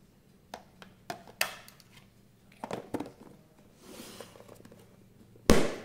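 Baked tart shells in foil cases being stacked into a clear plastic food container: light clicks and taps of foil and plastic, a short rustle, then one sharp, much louder plastic knock near the end as the container is handled.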